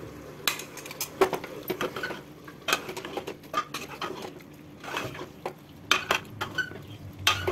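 Metal spatula knocking and scraping against the inside of a pressure cooker while stirring minced meat frying in oil. The clinks come irregularly, a few a second.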